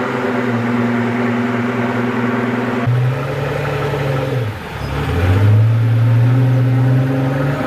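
Car engine revved and held at a steady high pitch for about three seconds, rising briefly a little higher, dipping about halfway through, then held steady again.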